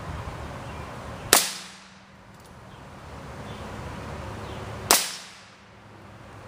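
Two shots from a Heritage Arms Rough Rider .22 revolver firing .22 Short rounds, about three and a half seconds apart, each a sharp crack with a brief ringing tail.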